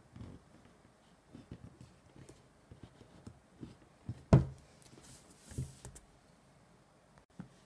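A taped cardboard game box being handled and opened: scattered knocks and rustles, a loud thump about four seconds in, and a short scraping rustle a little after.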